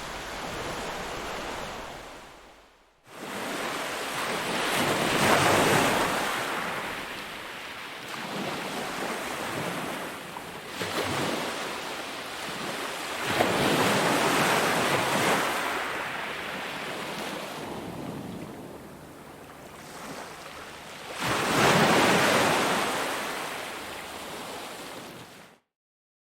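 Ocean waves washing in, the surf swelling and ebbing in three big surges about eight seconds apart. The sound dips almost to silence about three seconds in, then cuts off abruptly near the end.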